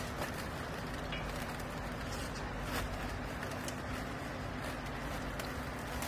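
Steady low machine hum with a few light clicks, as plastic strapping is handled around a bale held compressed in a vertical clothing baler.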